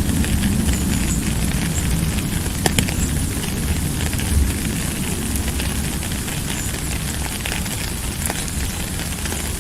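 Steady rain with scattered sharp drop ticks and a low rumble underneath.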